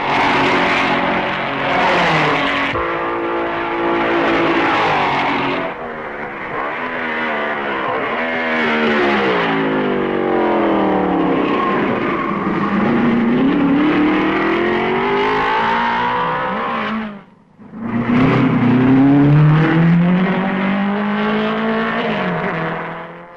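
1950s Grand Prix racing car engines running at high revs as cars go by, the pitch falling as they slow and rising again as they accelerate away. The sound breaks off sharply for a moment about 17 seconds in, then another engine revs up.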